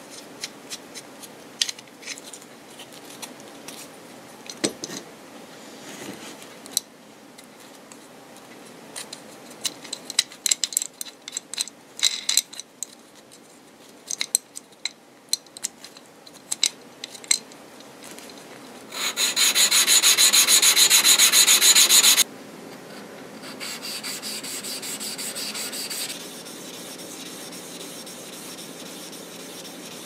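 Small metal clicks and taps as the metal edge plane is handled and its blade-locking set screw is adjusted. About two-thirds of the way in come some three seconds of loud, even abrasive rubbing that stop abruptly. Quieter steady rubbing follows as a cutter is worked on a sharpening stone.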